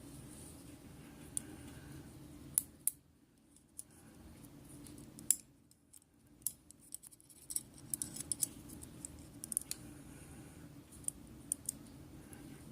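Light, scattered metallic clicks and ticks of small lock pins being handled as they are taken out of a gutted pin-tumbler lock, over a faint steady hum.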